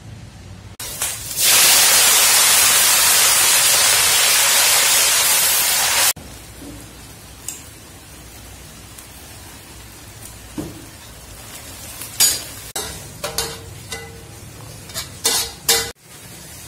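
Food sizzling loudly as it fries in hot oil in a pan. The sizzle stops abruptly about six seconds in. The rest is quieter, with a few short knocks near the end.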